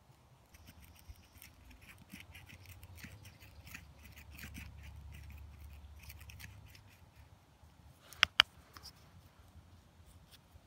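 Knife tip twisting and scraping into dry aspen wood to bore out a pipe, a run of short, scratchy scrapes and clicks. Two sharp knocks come just past the eighth second, louder than the carving.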